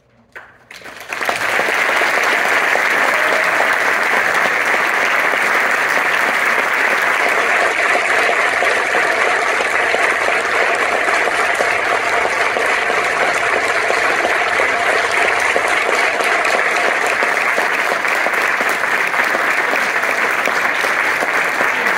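Concert audience applauding: the clapping breaks out about a second in, right after a hush, and then holds steady and dense.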